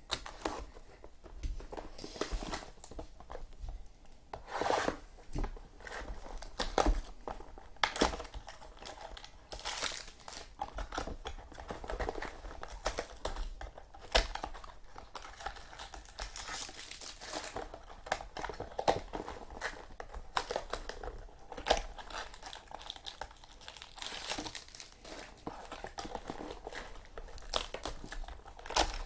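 Plastic shrink wrap being slit with a box cutter and torn off a trading-card box, then the cardboard box and its packaging handled: irregular crinkling and tearing with scattered sharp crackles.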